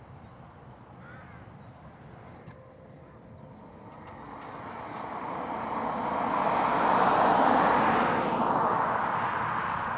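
Fendt 724 tractor running under load as it pulls a six-furrow Kverneland plough, growing louder as it approaches and loudest about seven seconds in, then easing off a little as it passes.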